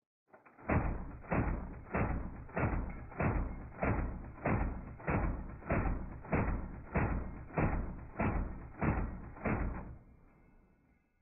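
M249 light machine gun firing one long burst, heard slowed down: about fifteen deep, drawn-out shots, evenly spaced at roughly one and a half a second, each dying away before the next. The shots stop about ten seconds in and a dull tail fades out.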